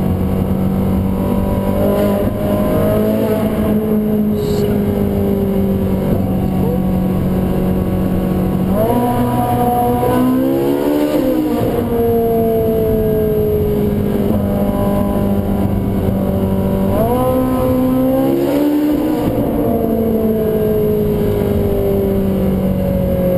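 Ferrari 458 Spider's naturally aspirated V8 running on the move. Its note sinks slowly for several seconds at a time, then twice jumps up sharply and wavers before sinking again.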